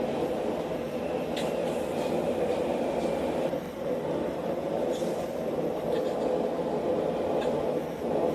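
A forge running with a steady rushing rumble, with a few faint ticks and no hammer blows on the anvil.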